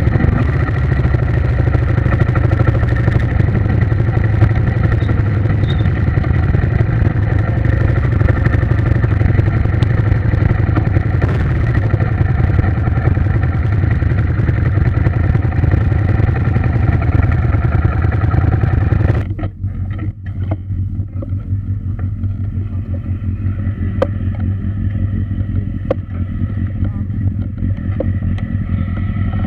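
A steady engine-like drone with a strong low hum. About two-thirds of the way in it changes abruptly to a duller, muffled sound with scattered clicks.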